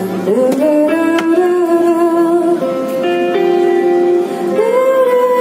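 Live concert music over a PA: a woman sings long held notes that slide up into each new pitch, over acoustic guitar.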